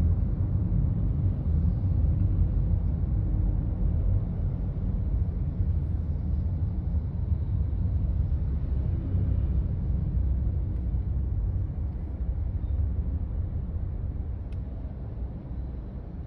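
Low, steady rumble of a car driving along a street, heard from inside the car, with road and wind noise. It fades a little toward the end.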